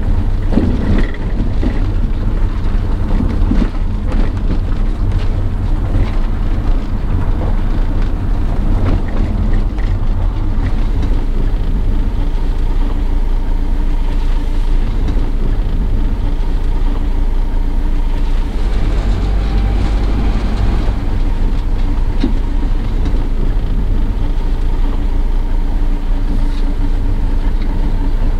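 Camper van on the move, its engine and road noise heard from inside the cab as a steady low rumble.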